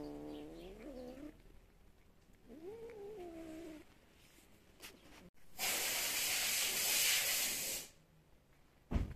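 A cat's low, drawn-out yowl, twice in the first four seconds, then a loud hiss lasting about two seconds: a cat warning other cats away from food. A short sharp knock near the end.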